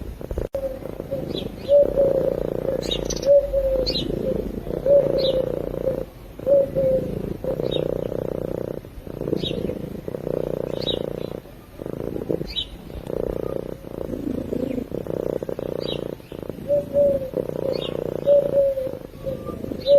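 Domestic cat purring in its sleep: a steady low rumble that breaks briefly with each breath. Short high chirps come about once a second over it.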